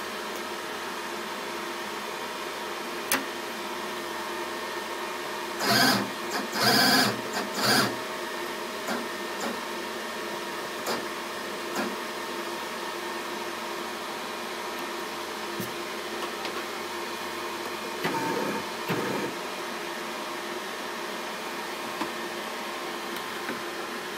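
Steady hum of an Epilog laser engraver running before the engraving starts, with a few clicks and short louder bursts of noise about six to eight seconds in and again near eighteen seconds.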